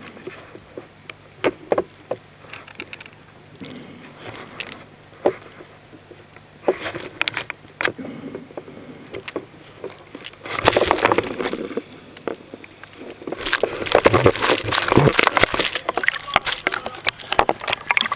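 Underwater recording of swimmers in the sea: muffled clicks, knocks and bubbling over a steady low hum. It grows louder and splashier in the second half as the camera nears and breaks the surface.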